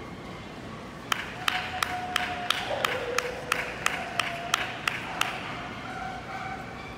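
One person clapping in a steady rhythm: about a dozen sharp claps, roughly three a second, starting about a second in and stopping about five seconds in.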